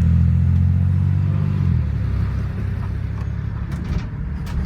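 Ford E-series van driving, heard from inside the cab: a steady low engine drone for about the first two seconds, which then eases off, leaving a rougher road rumble.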